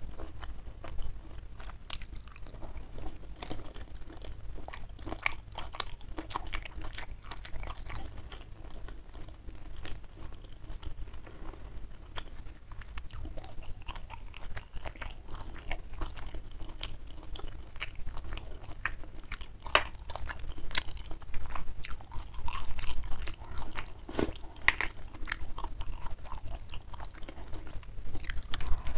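Close-miked eating sounds: chewing and crunching food, with many short, irregular crisp crunches.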